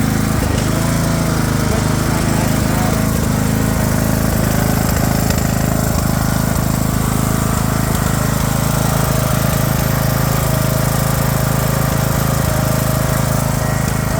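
Craftsman LT3000 riding lawn mower's engine running steadily at a constant speed, without misfiring.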